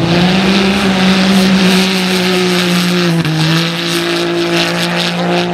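Off-road side-by-side buggy's engine held at high, steady revs under load as it drives through loose dirt. The pitch steps down slightly about three seconds in, over a gritty hiss.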